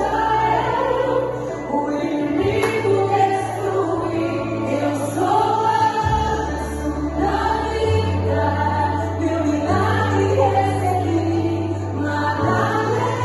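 Music: a Portuguese-language gospel song with choir-like singing over long held bass notes.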